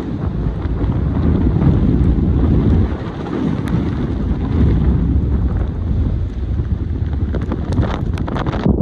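Strong gusty wind, around 45 mph with higher gusts, buffeting the microphone in a loud, unsteady low rumble.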